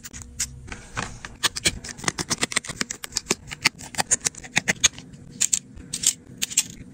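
Quick, irregular clicks and taps of small repair tools on a Samsung phone's opened back: a screwdriver on the screws of the inner cover and a plastic pry tool on the flex-cable connectors.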